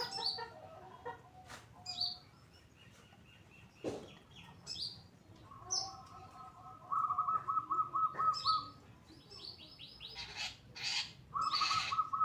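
Long-tailed shrike (cendet) singing a varied, harsh song. It mixes sharp down-slurred whistles and scratchy notes with a rapid stuttering trill, heard about halfway through and again near the end.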